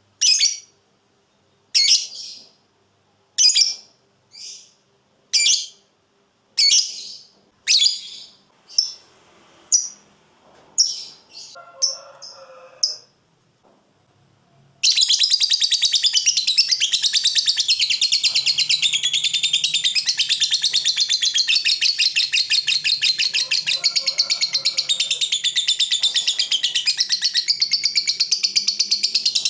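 Lovebird calling: about ten sharp, separate chirps roughly a second apart. About fifteen seconds in, it breaks into a long, unbroken, rapid chattering trill, the 'ngekek' call.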